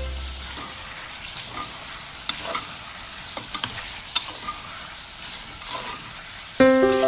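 Food sizzling in a hot pan while a spoon stirs it, scraping and clicking against the pan now and then. Background music comes in near the end.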